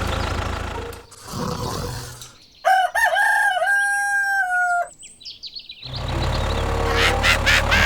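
A rooster crowing once, a cock-a-doodle-doo of about two seconds that ends in a long held, slightly falling note. Brief high chirps follow it, and a low steady machine hum runs before and after.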